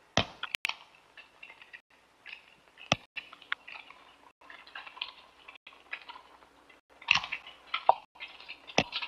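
Press cameras' shutters clicking in a rapid, irregular patter, with a few sharper, louder clicks standing out.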